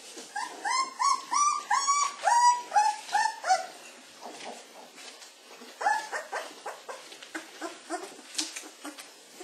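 Laekenois puppies whining and squealing while their mother licks them: a quick run of about ten high, arching cries in the first few seconds, then fainter, scattered whimpers.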